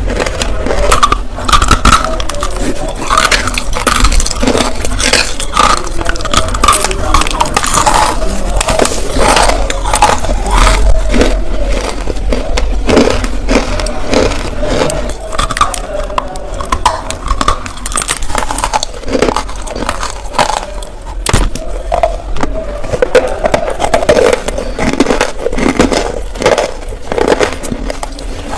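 Close-miked biting, crunching and chewing of nakumatt clay chunks coated with multani mitti (Fuller's earth) and black powder: a dense, irregular run of crisp cracks and crumbles.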